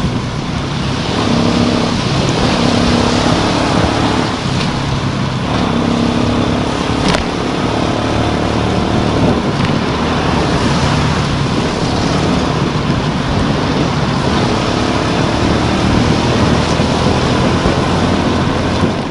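Motorcycle engine running under way, its note shifting up and down as the bike speeds up, over a steady hiss of tyres spraying water on a rain-soaked road.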